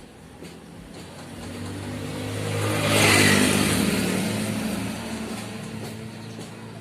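Motor vehicle engine sound that swells to its loudest about three seconds in, then fades away.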